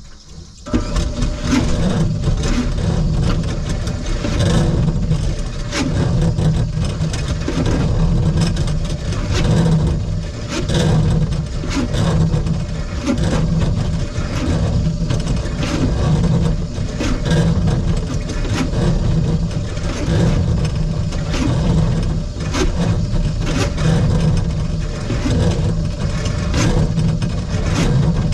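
Electric drum-type drain-cleaning machine starting about a second in and running steadily, its motor and turning drum giving a regular pulse about once a second, with the spinning cable rattling and clicking.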